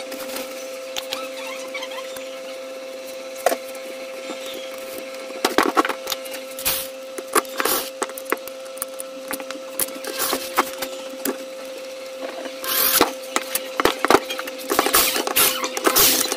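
Clicks, taps and knocks of plastic and metal engine parts being handled and fitted onto a Honda GX35 four-stroke engine, busier in the second half. A steady hum runs under them.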